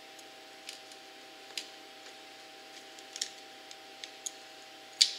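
Gasket scraper scraping and picking at old gasket material on a two-stroke ATV engine's crankcase: scattered, irregular clicks and short scrapes, the sharpest one near the end. A faint steady hum runs underneath.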